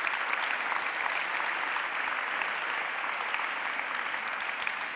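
A small seated audience applauding, with steady, dense hand clapping throughout.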